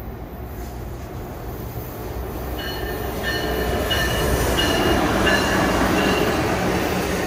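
Electric Amtrak passenger train approaching, its rumble growing steadily louder. From about two and a half seconds in, high wheel squeal comes and goes over the rumble.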